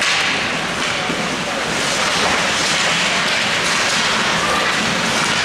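Ice hockey game ambience in an indoor rink: a steady hiss of skates carving the ice, mixed with the general noise of the arena.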